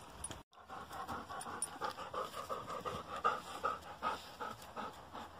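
Bernese mountain dog panting, fast and rhythmic at about four to five breaths a second, starting after a brief dropout about half a second in.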